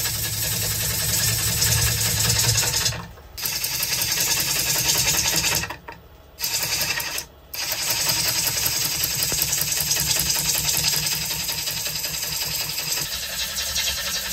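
Gouge cutting the face of a spinning sycamore platter on a wood lathe: a steady rasping cut over a low hum, broken by a few short gaps.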